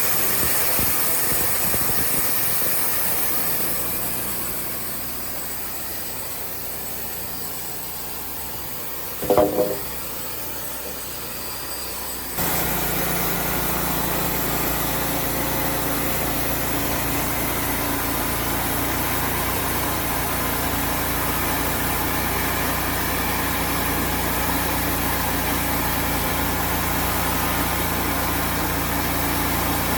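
Wood-Mizer portable band sawmill running, its engine and band blade sawing through white oak logs. The sound is steady, apart from a brief loud pitched sound about nine seconds in. About twelve seconds in, the level steps up abruptly and then stays steady.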